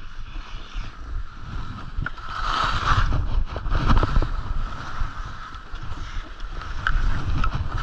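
Skis scraping and chattering over snow on turns, with knocks from bumps and a low rumble on the microphone. The scrape swells about three seconds in and again near the end.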